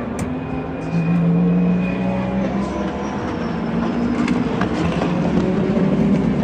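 Several sports-prototype and GT race car engines passing on track, their pitches falling as they go by and rising as new cars approach, with a near-constant loud engine drone underneath.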